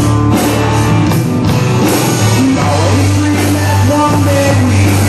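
Country-rock band music with electric guitars, bass and drums, and a sung vocal line.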